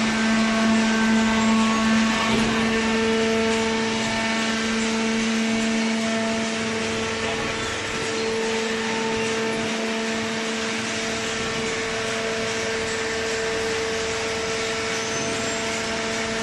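Hydraulic carton baler's electric motor and pump running steadily, a constant hum with a steady whine over a noisy machine rush.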